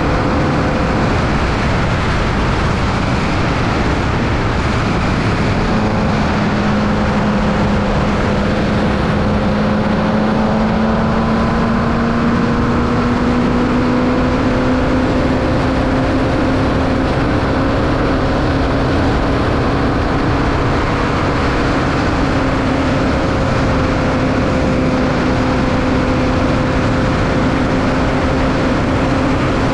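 Onboard sound of a Formula Vee's 1200cc air-cooled VW flat-four engine running hard at near-steady revs under a constant rush of noise, its pitch climbing slowly through the middle and then holding.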